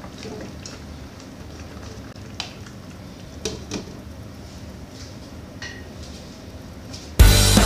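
Spatula stirring carrots and potatoes in a stainless steel pan, then a few sharp clinks of metal and glass as a glass lid goes on, one clink briefly ringing. Loud rock music cuts in suddenly near the end.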